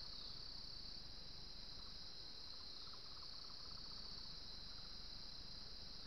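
Steady, high-pitched drone of forest insects, with a faint rapid pulsing trill about two to three seconds in.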